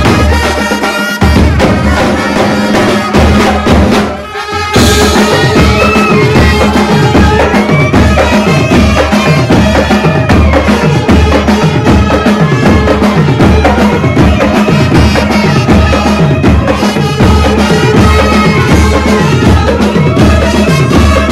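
Koli brass band playing: saxophones, trumpets and clarinet carry the melody over a steady beat from bass drums, tom-tom drums and cymbals. The music dips briefly about four seconds in, then carries on.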